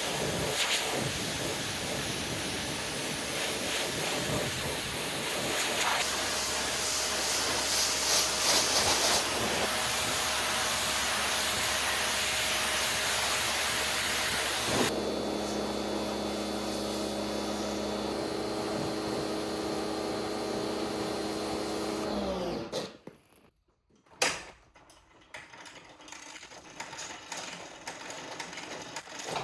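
Electric pressure washer (2000 PSI) spraying with a steady hiss, then the spray stops about halfway and the motor hums on steadily for several seconds before cutting off; a single click follows.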